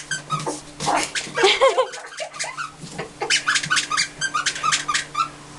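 Newspaper crackling and rustling as a puppy plays on it and tears at it, in many quick crackles. A brief puppy whine comes about a second and a half in.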